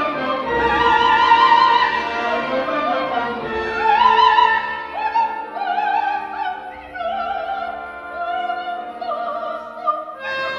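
Operatic singing with a wide vibrato over an orchestra, the voice holding long notes.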